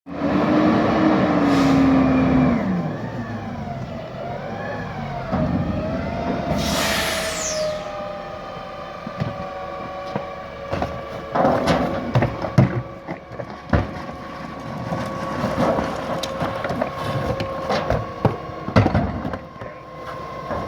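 Garbage truck working: its engine revs with a whining, gliding hydraulic tone, and an air hiss drops in pitch about seven seconds in. After that the packer's hydraulics whine steadily under repeated clanks and knocks.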